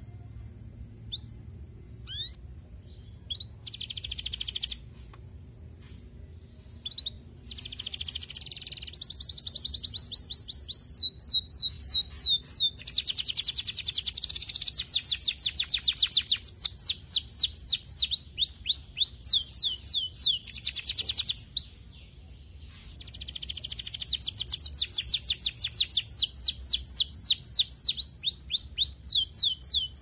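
Domestic canary singing: a few scattered chirps at first, then from about eight seconds long, fast rolling trills of rapidly repeated down-slurred notes. After a short break a little past twenty seconds, a second long trill phrase follows.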